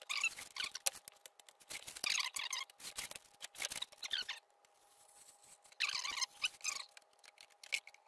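A freshly fiberglassed cardboard rocket airframe tube being worked by hand, giving several short bursts of scratchy squeaking and scraping about a second apart.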